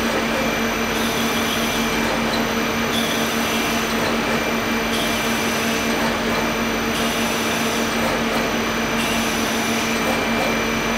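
A machine tool runs steadily while a 15 mm two-flute HSS drill cuts into a thick carbon-fibre (CFRP) plate. It makes an even hum with several constant tones and does not change through the cut.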